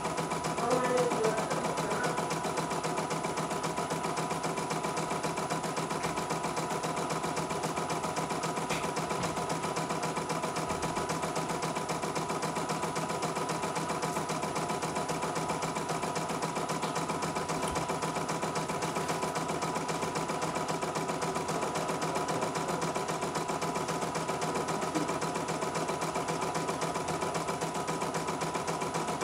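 CNY E900 portable embroidery machine stitching a design: a fast, even needle rhythm over a steady motor hum, unbroken throughout.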